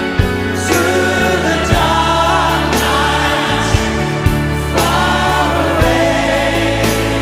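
Music: a song with choir-like singing over held bass notes and regular drum hits.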